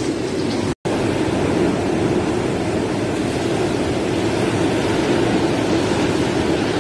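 Typhoon-force wind and heavy rain, a steady loud roar of storm noise on the phone microphone, broken once by a brief dropout just under a second in.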